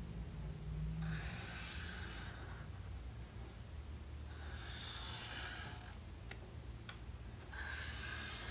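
Black Sharpie permanent marker drawn across mixed media sketchbook paper in long strokes: three separate scratchy squeaks of felt tip on paper, each lasting one to two seconds.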